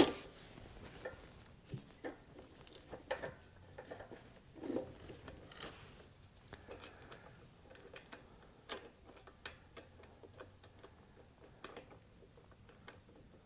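Faint, scattered clicks and light metallic taps of hands handling a small engine's carburetor throttle linkage and its spring, at irregular intervals.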